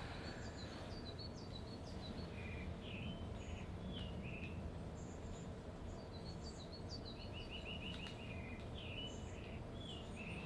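Small songbirds chirping and calling in quick, repeated short notes, several overlapping, over a steady low background rumble.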